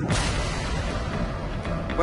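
A sudden loud boom-like blast at the start, its noise carrying on and slowly fading, over dramatic background music.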